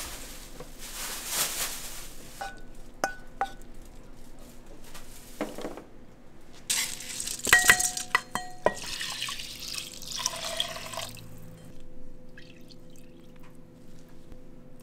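Kitchen work: water running from a tap in short spells, and glassware and dishes clinking, with a cluster of ringing clinks about halfway through.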